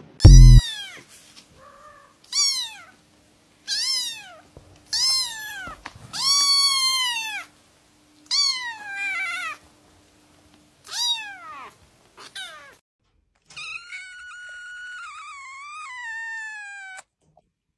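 A ginger kitten meowing over and over: about eight short, high meows, each rising then falling in pitch, with a brief loud low thump about half a second in. Near the end a cat gives one long, drawn-out meow that steps down in pitch.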